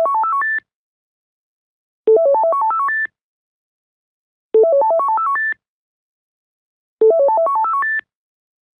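Modern landline telephone ringing with an electronic ringtone. Each ring is a quick climbing run of beeping notes that ends on a held high note and lasts about a second. The rings repeat about every two and a half seconds with silence between: the end of one ring at the start, then three full rings.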